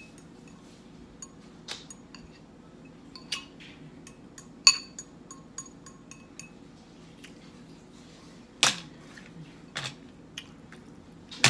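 Metal fork clinking against a glass salad bowl, a handful of sharp clinks that ring briefly, the loudest about five seconds in. A louder clatter comes about three-quarters of the way through, as the fork is laid on the metal serving tray.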